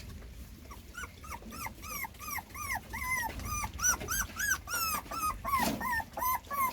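Puppy whimpering in a string of short high whines, about two a second, each rising and then falling in pitch.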